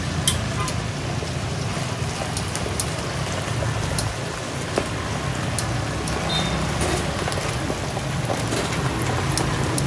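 Steady motorbike-traffic rumble with scattered sharp clicks from kitchen scissors snipping crisp fried chicken skin.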